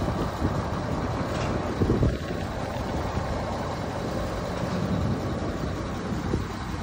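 Kobelco crawler crane's diesel engine running steadily, with wind buffeting the microphone.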